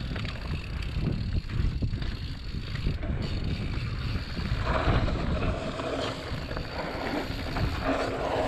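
Mountain bike rolling down a dirt woodland singletrack: tyres rumbling over the trail and the bike rattling with scattered knocks over bumps, with wind buffeting the microphone. A hissing noise thickens from about five seconds in and again near the end.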